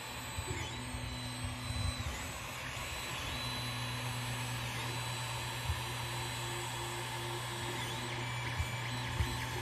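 Creality Ender 3 3D printer running a print: its stepper motors whine in short tones that change pitch every second or so as the head moves, over the steady hum of its fans. A few sharp clicks come through.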